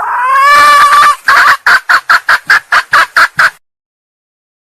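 Female junglefowl (hen) calling: one drawn-out call lasting about a second, then a quick run of about ten short clucks. This is the hen's call used as a lure to draw in junglefowl cocks.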